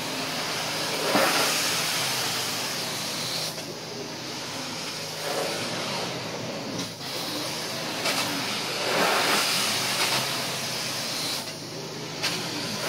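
Carpet-cleaning extraction wand on a Rage truck-mounted carpet extractor, hissing steadily with suction and hot-water spray as it is worked across carpet. The hiss rises and falls every couple of seconds.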